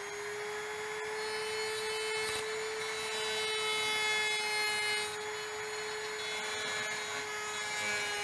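Small corded rotary tool running at a steady high whine while its 2.5 mm ball-nose carbide burr grinds away a broken high-speed steel spiral tap stuck in a threaded hole, with scratchy grinding noise over the motor's tone. The burr is breaking chunks off the tap as it cuts.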